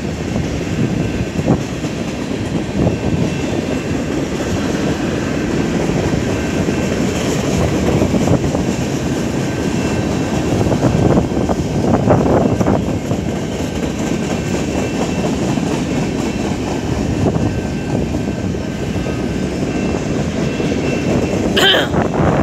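Long CN freight train's cars rolling past at speed: a steady loud rumble of steel wheels on rail, with a brief high squeal near the end.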